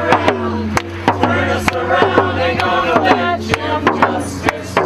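Protest crowd singing with a hand drum beating roughly twice a second.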